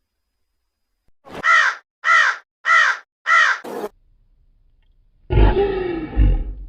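Four harsh bird calls, evenly spaced about half a second apart, followed after a short pause by a loud, deep animal call that begins about five seconds in.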